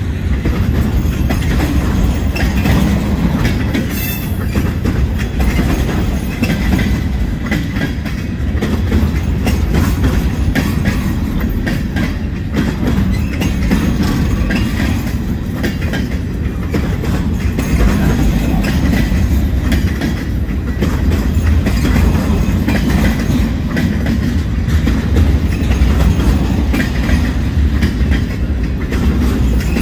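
Freight train of empty centerbeam flatcars rolling past close by: a steady heavy rumble of steel wheels on rail with a continuous clickety-clack of wheels over the joints.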